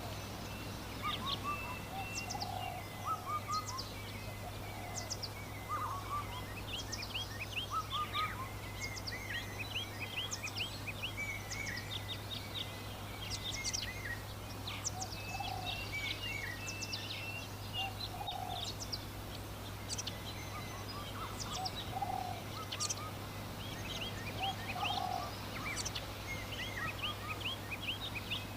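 Rural birdsong: many small birds chirping busily and continuously, with a lower call repeating every couple of seconds, over a steady low hum.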